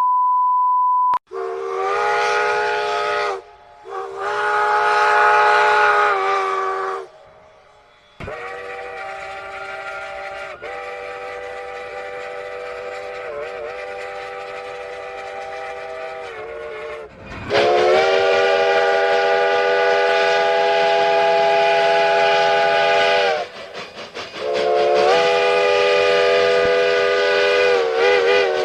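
A short steady beep, then a multi-chime train whistle sounding a series of blasts, each a chord of several notes. Two short blasts are followed by a long quieter one, then a long loud one, and a last blast that wavers in pitch near the end.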